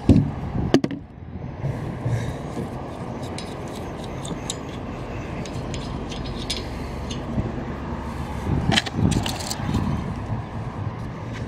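Metal hand-tool clicks and clinks from a ratchet working the nut of a windscreen wiper arm, with a few sharp clicks at the start and a cluster of knocks about nine seconds in, over a steady background noise.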